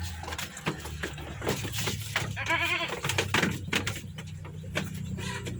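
A goat bleats once, a short quavering bleat about halfway through, while it is being drenched with a herbal cough remedy. Scattered short knocks and scuffs come from the handling around it.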